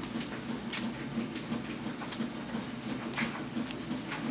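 Paper and card pages of a handmade journal being turned and handled, with brief crisp rustles and flicks every second or so over a steady low hum.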